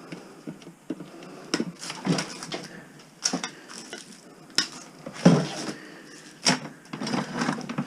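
Irregular clattering and knocking of hard household objects, a string of sharp knocks a second or so apart, as clutter is handled or shifted.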